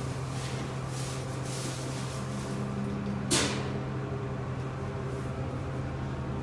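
Inside a closed Otis passenger elevator cab: a steady hum, with a second, higher tone joining about two seconds in. A single sharp click comes a little past three seconds.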